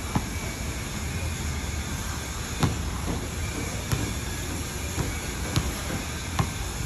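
Steady outdoor rumble, like a constant background noise, broken by about five sharp knocks at uneven intervals, the loudest about two and a half seconds in.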